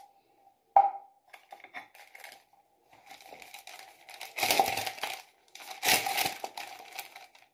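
Paper sachets, the batter's baking powder, being torn open and crinkled: a sharp knock about a second in, then two rasping tears a little over a second apart, over a faint steady hum.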